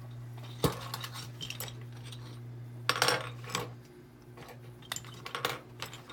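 Small metal lockpicking tools clinking and rattling as they are rummaged through: a sharp clink about half a second in, a clatter around three seconds in, then lighter clicks.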